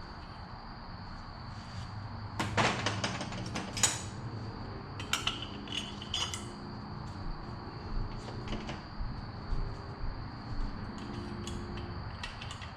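Metal engine parts and hand tools clinking and knocking together as they are handled. A dense clatter comes about two and a half seconds in, followed by a few ringing metallic knocks and scattered lighter clicks.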